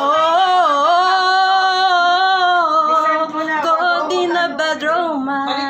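A single voice singing without accompaniment, starting abruptly on long held notes that bend and waver in pitch, then moving through shorter notes about halfway through.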